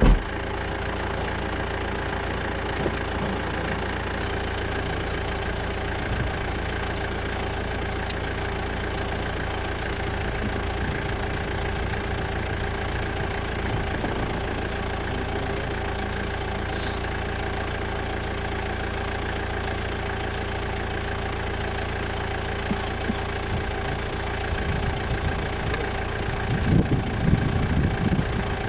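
Vehicle engine idling steadily, with a few louder, uneven low sounds near the end.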